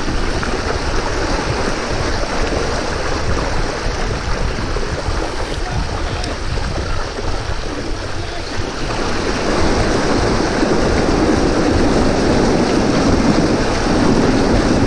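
Mountain bike tyres splashing and hissing through shallow floodwater on a dirt track, mixed with wind noise on the microphone. It grows louder about ten seconds in.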